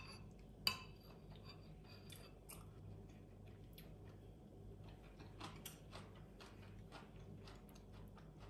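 Metal spoon clinking against a ceramic soup bowl: two sharp clinks near the start, the second ringing briefly, then a run of soft clicks and scrapes as the spoon scoops in the soup.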